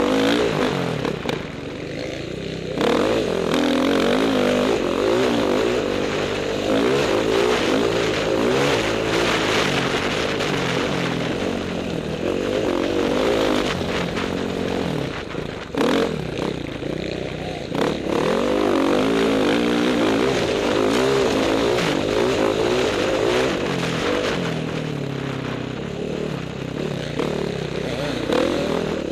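Off-road dirt bike engine running hard and revving up and down over a sandy track, the pitch rising and falling constantly as the throttle is worked. It eases off briefly about two seconds in and again around the middle before pulling hard again.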